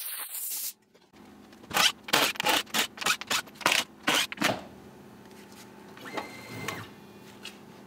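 Compressed-air blow gun hissing, cut off sharply under a second in. Then a quick run of about ten loud knocks and clatters over some three seconds, and a short mechanical whine about six seconds in.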